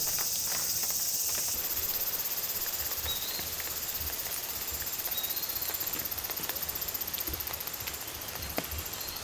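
Outdoor insect chorus: a steady, high, finely pulsing chirring, with one louder high-pitched insect cutting off abruptly about a second and a half in. A couple of faint short chirps sound through it.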